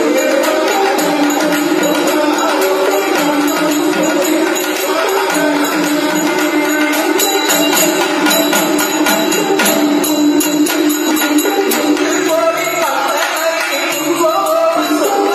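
Live South Indian temple music: a sustained, wavering wind melody over steady barrel-drum strokes and small hand cymbals clashing in rhythm.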